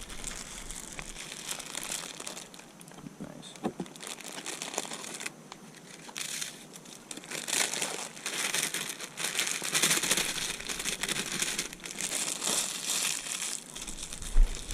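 Crinkling and rustling of plastic bait packaging being handled, in irregular bursts that get louder about six seconds in.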